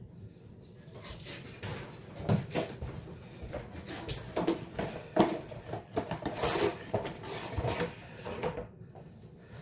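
Irregular clattering and knocking of hard objects being moved and handled, someone rummaging for a replacement rear shock absorber.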